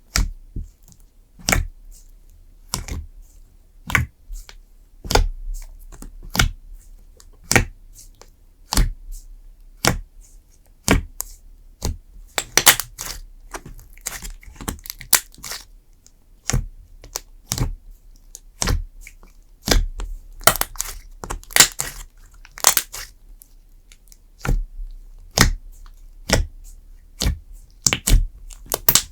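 Clay slime being pressed and squished by hand, each press giving a sharp crackling pop. The pops come about once a second, with quicker runs in places.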